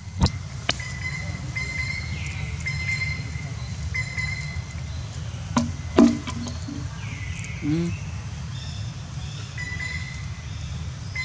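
Outdoor background of a steady low rumble with repeated high chirping calls, broken by a few sharp clicks, the loudest about six seconds in.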